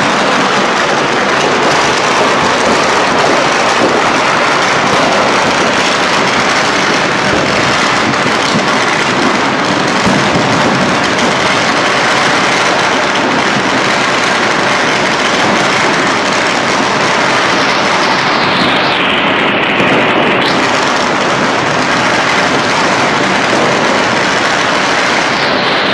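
Countless firecrackers going off at once in a dense, unbroken crackle.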